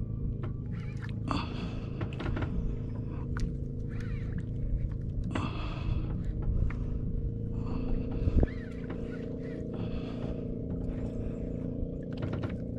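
Small boat's engine running with a steady drone. A few brief rushing noises come and go over it, and a single knock sounds about eight seconds in.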